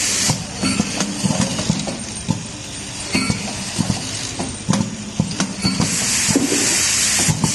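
Automatic multi-track screw feeder running: metal screws click and clink along the feed tracks among the mechanism's clacks. A steady high hiss stops just after the start and comes back about six seconds in for a second and a half.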